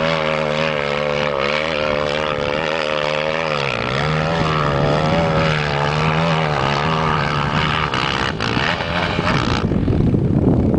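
Suzuki LTR 450 quad's single-cylinder four-stroke engine running, its note rising and falling with the throttle and dipping briefly about four seconds in. Near the end the engine note fades and a rushing noise takes over.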